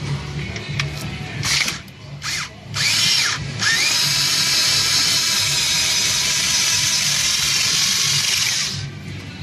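A cordless power tool's motor, a drill or driver, is triggered in three short bursts, the third rising in pitch. It then runs steadily for about five seconds before stopping.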